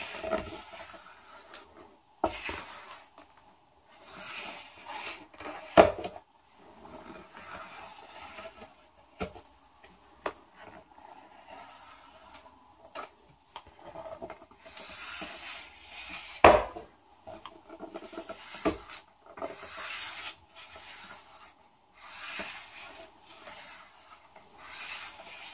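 A plastic squeegee card rubbing and scraping in repeated strokes across a TPU screen protector film on a phone screen while the film's backing liner is peeled away, with a few sharp clicks and taps, the loudest about six seconds in and again about sixteen seconds in.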